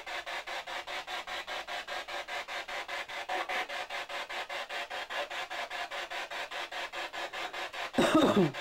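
Rapid, even pulsing static, about eight pulses a second. Near the end a short, loud voice-like cry falls in pitch.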